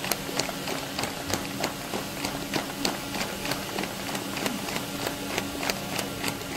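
A few people clapping: sharp, separate claps about three or four a second, over a steady low hum.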